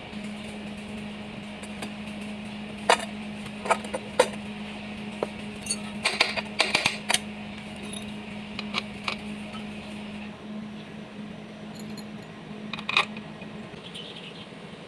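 Metal tools and engine parts clinking and tapping during engine reassembly: scattered sharp clinks, with a quick cluster about six to seven seconds in. A steady low hum runs underneath.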